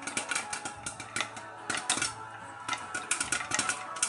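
Popcorn kernels popping in a covered pan on a stovetop: many sharp, irregular pops a second, coming in quick clusters.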